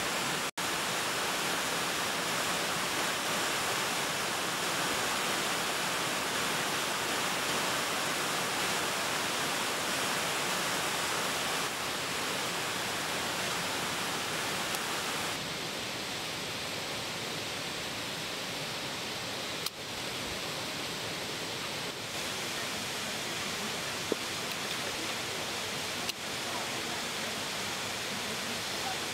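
Steady rush of a waterfall, with a few faint knocks in the second half.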